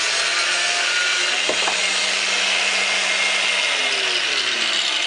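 Angle grinder cutting through steel, a steady loud hiss of disc on metal over the motor's hum. The motor's pitch sinks over the last second or so.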